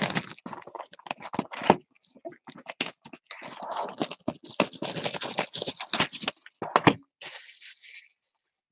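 Clear plastic shrink wrap on a box of trading cards crinkling and tearing as it is pulled off, an irregular run of crackles and rustles with a smoother, longer rustle near the end.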